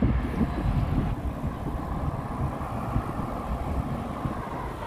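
Wind rushing over the microphone of a camera carried on a moving bicycle: an uneven low rumble with no clear tone.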